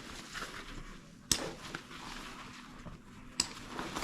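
Two sharp clicks about two seconds apart over faint rustling as a backpack is handled.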